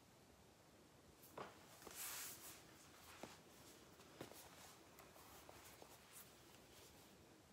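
Near silence: quiet room tone with a few faint, short clicks and a brief soft rustle about two seconds in, small handling noises.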